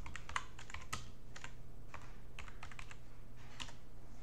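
Computer keyboard typing: about a dozen short key clicks in uneven bursts as a web address is entered, over a faint steady low hum.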